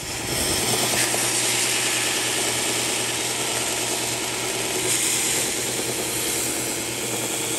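Bench belt sander running steadily while the edge of a PVC board is ground against the belt, a loud continuous hiss over a low motor hum.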